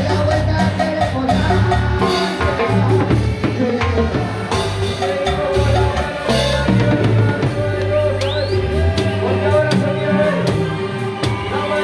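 Live band music without singing: a drum kit playing a steady beat over low bass notes and held instrument tones.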